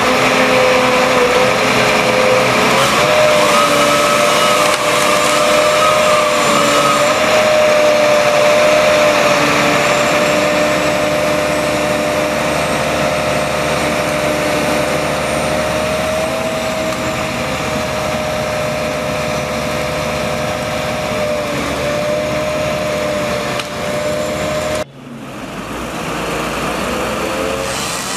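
DOLL Tree Trimmer felling crane running at work, a steady machine drone with a whining tone that steps up slightly a few seconds in. The noise breaks off abruptly for a moment near the end and then carries on a little quieter.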